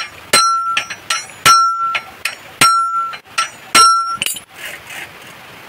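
Steel hammer driving a new cotter pin into a bicycle's pedal crank: four heavy metallic strikes about a second apart, each leaving a short ring, with lighter taps between. The blows stop about four seconds in.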